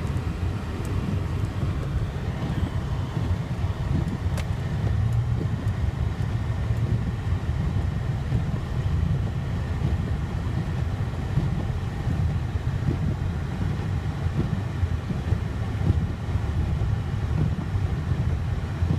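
Honda Ridgeline's engine and tyres heard from inside the cab while driving through deep snow: a steady low rumble with a faint tick or two now and then.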